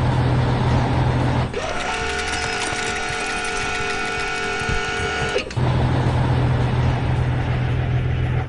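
Cartoon vehicle sound effects: a low engine rumble that changes about a second and a half in to a steady mechanical whine of several held pitches, lasting about four seconds, before the low rumble returns.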